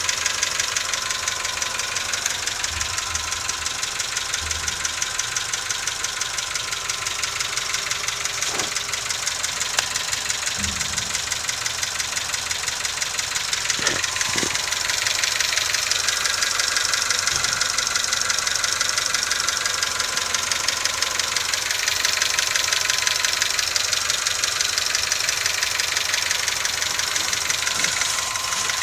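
Nissan March's CR12 petrol engine idling with a fast, even ticking clatter over a steady hum. This is the extraneous noise the owner cannot identify.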